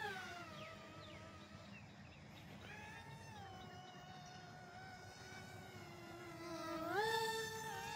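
Toy RC jet plane's electric motor whining. The pitch drops right at the start, holds lower for several seconds, then climbs sharply and gets louder about seven seconds in.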